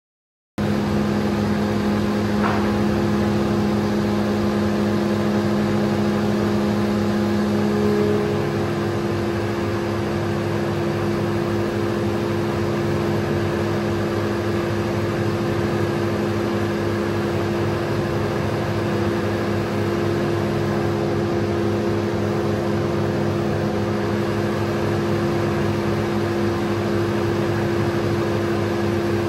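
Spindle moulder with a power feeder running steadily while moulding a long board into tongue-and-groove or shiplap: a constant machine hum that starts abruptly and shifts slightly in tone about eight seconds in.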